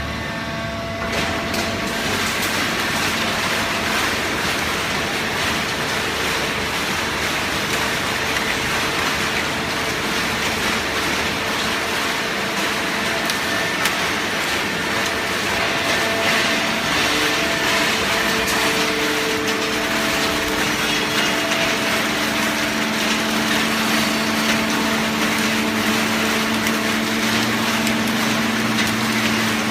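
Industrial hydraulic baler for shredded paper running: a steady, loud mechanical rush with a constant hydraulic-pump hum. The hum grows stronger about two-thirds of the way through.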